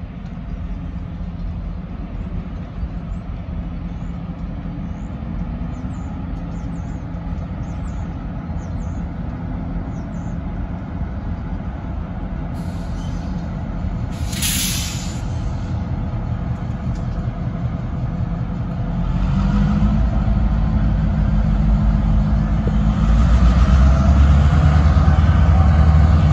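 Diesel locomotives running with a steady low rumble; about halfway through comes a sharp hiss of air from the brakes lasting about a second, and over the last several seconds the engines grow louder in two steps as the locomotives throttle up and start moving.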